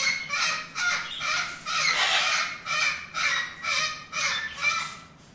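A bird calling loudly over and over in harsh squawks, about three calls a second, dying away near the end.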